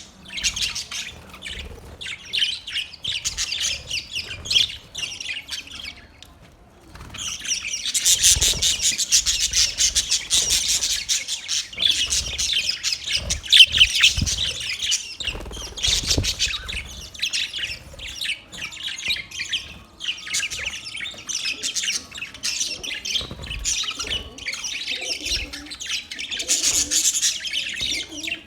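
Several budgerigars chattering and chirping in rapid, overlapping calls, with a brief lull about six seconds in.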